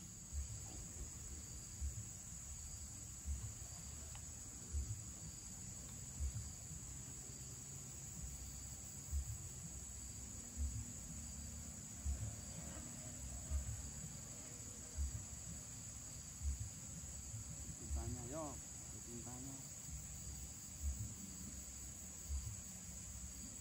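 Steady high-pitched insect chorus, with soft low thumps about every second and a half and a faint voice briefly about three quarters of the way through.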